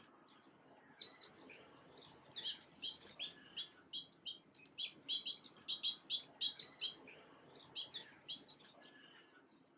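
Small birds chirping: a quick run of short, high chirps that grows denser in the middle and thins out near the end.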